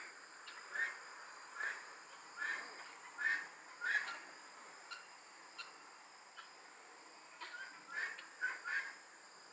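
Short bird calls, about one every second for the first four seconds, then a quick run of them near the end, over a faint steady high-pitched drone of insects such as crickets.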